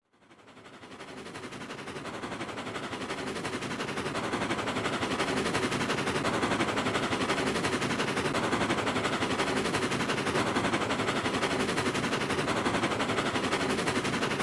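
Sound effect for a giant flying ghost-train creature: a rapid, continuous mechanical rattle like a fast-chugging engine. It fades in from silence over the first few seconds, then holds steady.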